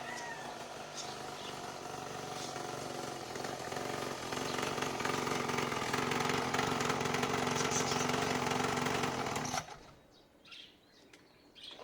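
Small kids' ATV engine running steadily and growing louder, then cutting off abruptly near the end; birds chirp faintly after it stops.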